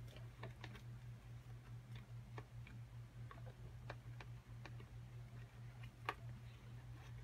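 White plastic spoon stirring slime mixture in a clear plastic tub, its edge knocking and scraping the tub in irregular faint clicks, one or two a second. A steady low hum runs underneath.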